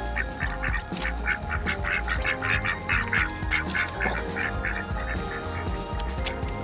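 Ducks quacking, a rapid run of short calls about three or four a second, over steady background music.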